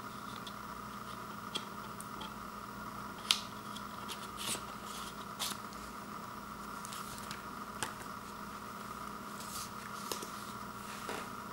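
Hands handling a cardboard CD digipak and leafing through its attached paper booklet: soft page and card rustles with a few small clicks and taps, the sharpest about three seconds in, over a steady background hum.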